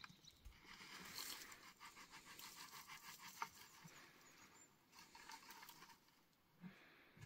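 Soil poured from a plastic bucket onto a garden bed: a faint patter of grains and clumps landing, which thins out about five and a half seconds in.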